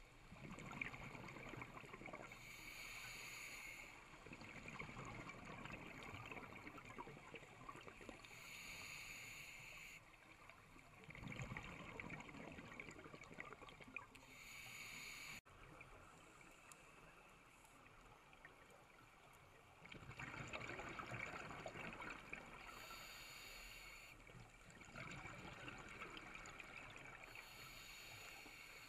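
Faint underwater scuba breathing through a regulator: a hiss on each inhalation alternates with the gurgle and crackle of exhaled bubbles, in a slow cycle every few seconds.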